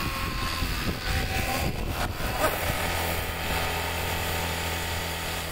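Electric FlyWing FW450 V3 RC helicopter in an Airwolf body landing, its rotors whirring with a steady hum as it settles onto the ground. The sound tapers off gradually near the end.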